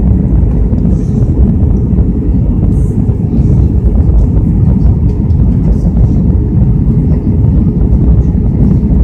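Steady, loud low rumble of an airliner's engines and rushing air heard inside the cabin during the descent to land, with a faint steady hum over it.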